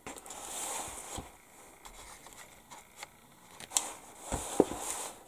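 Rustling of a paper instruction booklet being handled, with a few light taps and clicks.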